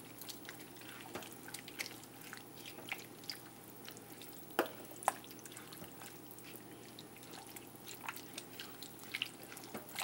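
Silicone spatula stirring a thick chili mixture of ground turkey, beans and tomatoes in a crock pot's ceramic insert: irregular soft wet squelches and clicks, the sharpest two about halfway through.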